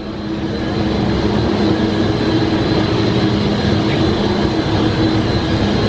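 Air conditioning blowing: a steady rush of air with a constant low hum, getting louder over the first second and then holding.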